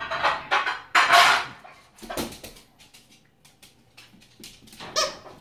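A small terrier-mix dog moving about on a hard laminate floor, its claws clicking, with several louder short noisy bursts, the loudest about a second in.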